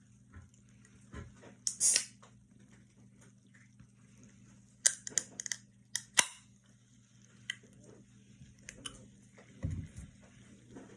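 Aluminium soda cans being handled: a sharp click about two seconds in, then a quick cluster of clicks and taps around five to six seconds in, with a few lighter ticks after.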